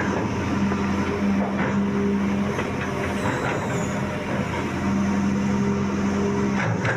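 Sumitomo hydraulic excavator's diesel engine running steadily with a constant hum while the machine loads dredged river mud into a dump truck.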